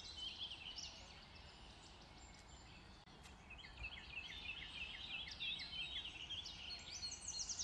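Faint jungle ambience of birds chirping. The short calls are sparse at first, then come in a quick run of repeated chirps in the second half, over a low background noise.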